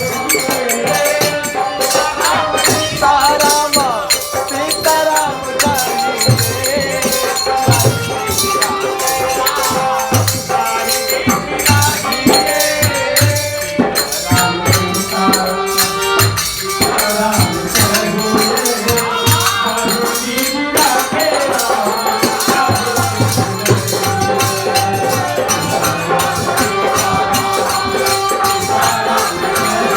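Kirtan: devotional group singing over a steady beat of shaken rattling hand percussion, with a drum thumping beneath.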